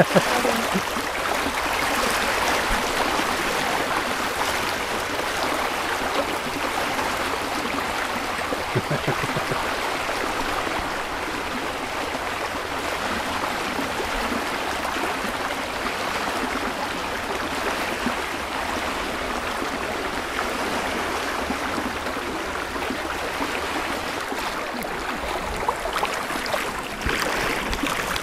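Shallow river water flowing fast along a flooded street: a steady rushing hiss of moving water.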